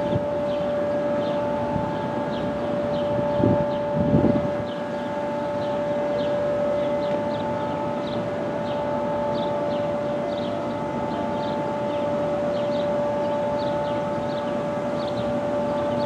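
Steady, unwavering two-note siren tone of an outdoor warning siren, sounding at a distance and not yet from the Quadren in view. Short high chirps repeat about twice a second over it.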